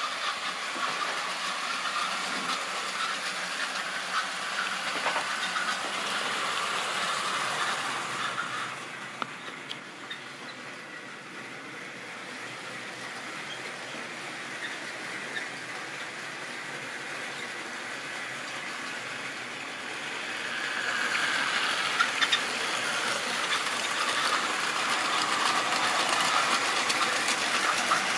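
Model railway freight train running on the track, its small wheels rattling steadily over the rails. The sound drops away after about eight seconds and swells again about twenty seconds in as the wagons pass close.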